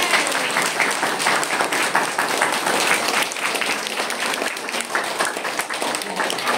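Crowd applauding, a dense patter of many hands clapping, with a few voices mixed in.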